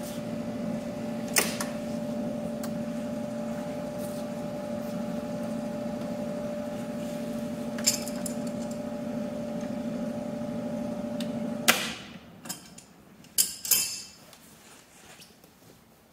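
Monarch 10EE lathe humming steadily with its power on, then cut off suddenly with a click about twelve seconds in as the machine is shut down. A few knocks and clicks follow.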